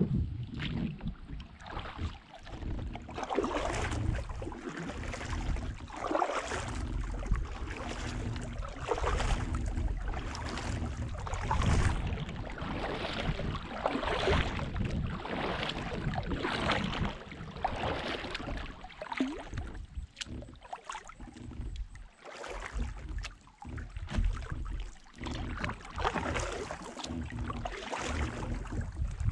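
Kayak paddle strokes: a double-bladed paddle dipping and pulling through the water on alternating sides, splashing and dripping about once a second, over a steady low rumble.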